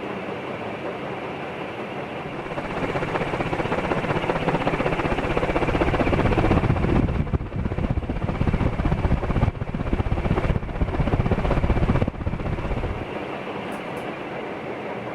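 Canarm Pleasantaire CP56T 56-inch industrial ceiling fan running, a steady rush of moving air. A louder, uneven low rumble comes in about three seconds in and drops away suddenly near the end.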